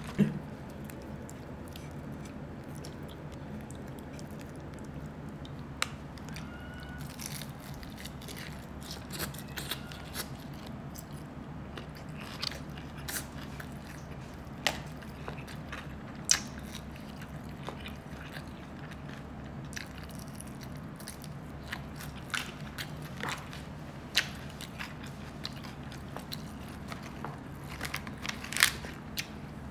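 Close-miked eating: chewing with scattered short crunches and clicks of bites, over a steady low hum.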